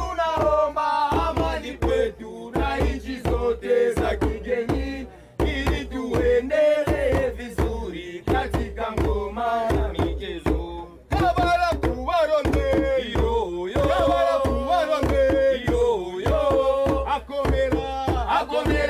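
Rope-tuned hand drums struck with bare hands in a fast, dense rhythm while young men sing together over them, the drumming dropping out briefly about five and eleven seconds in.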